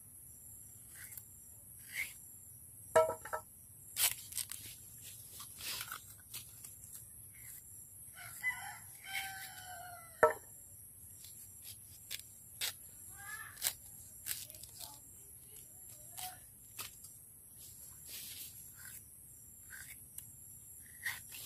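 A rooster crows once, about eight seconds in, for roughly two seconds. Around it come scattered sharp knife clicks and cracks as fresh bamboo shoots are peeled and sliced, some of them louder than the crow.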